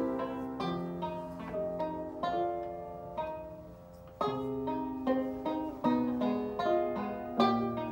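Banjo and grand piano playing an instrumental duet: plucked banjo notes over sustained piano notes. The music thins to a quiet moment about four seconds in, then both come back in strongly.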